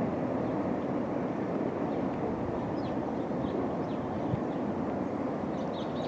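Norfolk Southern manifest freight train rolling through a junction: a steady rumble of railcar wheels on the rails. Faint bird chirps come in near the end.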